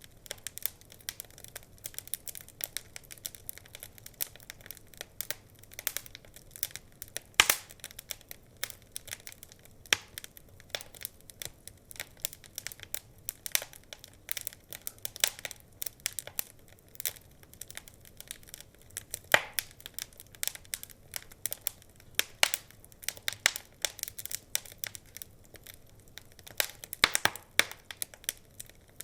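Wood fire crackling: a steady stream of irregular small pops and clicks from burning logs, with a few louder snaps.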